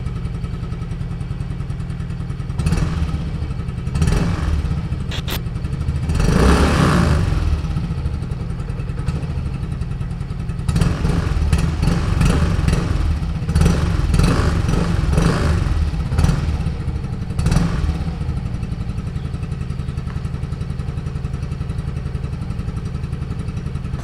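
Yamaha Mio Fazzio's 125cc air-cooled four-stroke single-cylinder engine idling steadily, with a series of short throttle blips. The longest and loudest rev comes about six to seven seconds in, and a cluster of quicker blips follows between roughly eleven and eighteen seconds.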